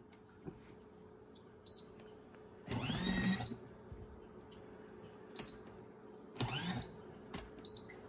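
Control panel of a mini portable washing machine beeping three times, short high beeps, as its single button is pressed to select the spin-dry (semi-hydration) mode. Two brief louder whirs that rise in pitch come between the beeps, with a faint steady hum underneath.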